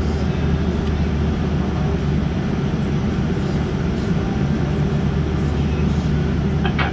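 Steady low hum and rumble inside the cabin of a Boeing 787-9 taxiing with its engines at idle, with air-system hiss over it.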